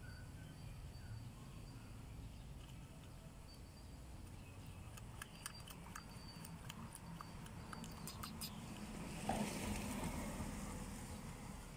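Light water splashing and dripping from a baby monkey moving in a basin of foamy bathwater: a run of small sharp splashes and drips, then a louder splash about nine seconds in. Faint high chirps in the background.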